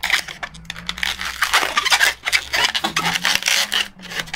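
260Q latex modelling balloons rubbing and scraping against each other and against the hands in quick, irregular strokes as they are twisted.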